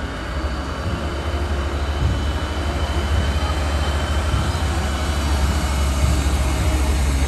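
Heavy diesel fire engines driving slowly past in a procession: a steady low engine rumble that grows a little louder toward the end as the next truck comes up.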